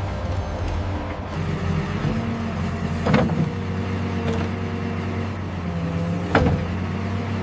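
JCB 3CX backhoe loader's diesel engine running, with two sharp metallic clanks, one about three seconds in and another near the end.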